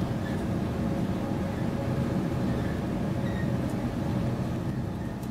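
Electric passenger train running at speed, heard from inside the carriage: a steady low rumble with a faint steady hum.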